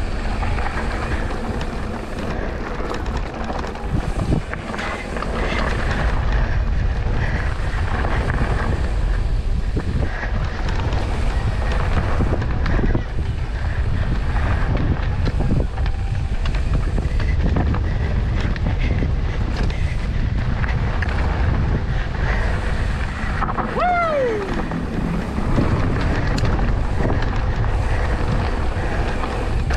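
Mountain bike descending a dirt trail at speed: wind rushing over the microphone, with a steady low rumble and scattered clatter from tyres and bike over the ground. A short falling squeal sounds about 24 seconds in.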